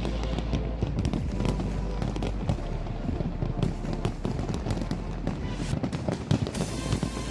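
Large fireworks display, with many shells bursting at once in a dense, uneven run of bangs and crackling over a steady low rumble.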